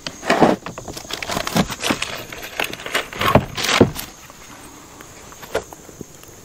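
A stick poking and scraping through twigs and paper in a campfire pit, making irregular knocks and scrapes for about four seconds, then dying down.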